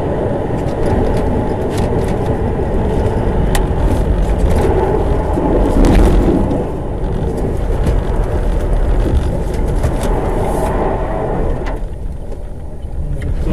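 A car driving: steady engine and road noise, with scattered light clicks and knocks.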